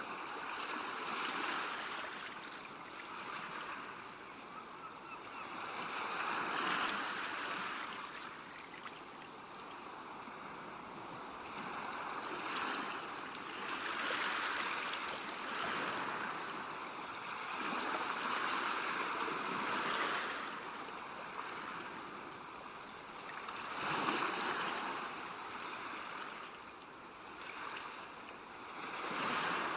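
Ocean surf washing in and out, a steady rush of water that swells and eases every few seconds as the waves come in.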